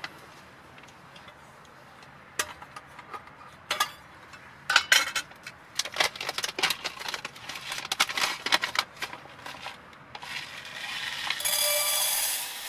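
Cooking gear being handled: a run of light metallic clinks and knocks, then a steady hiss from about ten seconds in.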